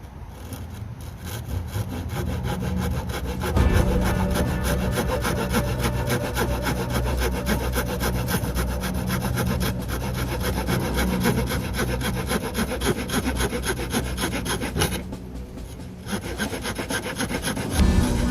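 Victorinox Spirit X multitool's small saw blade cutting hardwood by hand, in quick, even back-and-forth strokes. There is a brief pause about fifteen seconds in before the sawing starts again.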